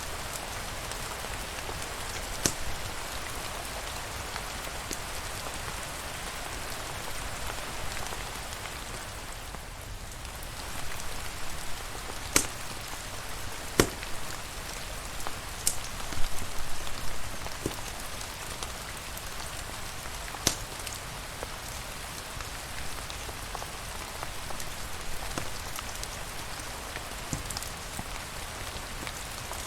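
Steady rain falling, with scattered sharp clicks or pops every few seconds, clustered near the middle.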